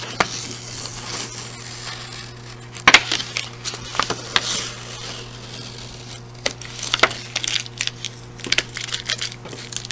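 Blue masking tape being peeled off watercolor paper, a papery rasp over the first two seconds or so, then the tape crinkling and crackling as it is wadded into a ball.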